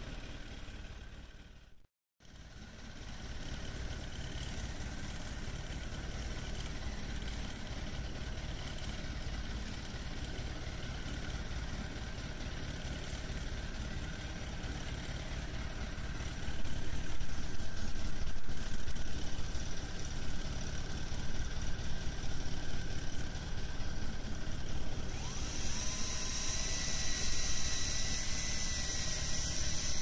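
Boat engine running steadily at idle, a continuous hum with a brief silent gap about two seconds in. It gets louder a little past halfway, and a strong hiss joins it near the end.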